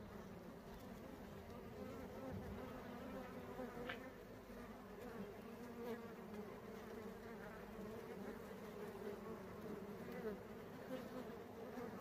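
Honeybees buzzing as they gather pollen from male date-palm flowers: a steady, wavering drone of many wings.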